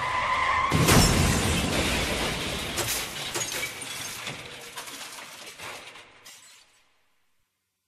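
A short steady tone, then a sudden crash about a second in, followed by a scattered clatter of falling pieces that fades away over the next five seconds.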